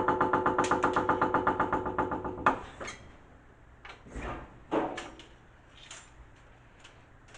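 Background music with a fast pulsing rhythm over held tones cuts off abruptly about two and a half seconds in. A sharp knock follows, then a few quieter knocks and clunks.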